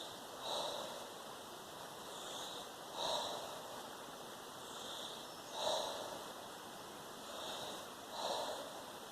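A person doing a rhythmic breathing exercise: repeated pairs of sharp breaths, a softer one followed by a louder, forceful one. The pairs come about every two and a half seconds, four times.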